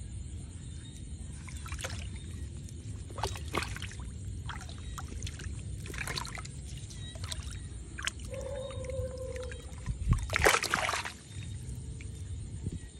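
Water splashing and sloshing as a hand gropes for fish inside a bamboo plunge basket set in shallow water, in scattered short splashes and knocks with the loudest splash about ten seconds in. A brief falling squeak sounds about eight seconds in, over a steady low rumble.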